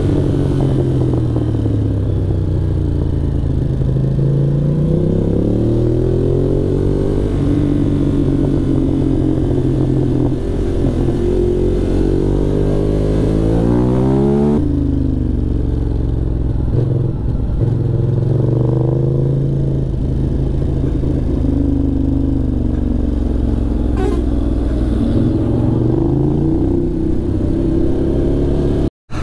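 Ducati Monster 821's L-twin engine under way on a winding road, its pitch rising and falling again and again as the rider opens and closes the throttle and shifts gears. About halfway through, the engine note changes abruptly at a cut, and near the end it drops out briefly.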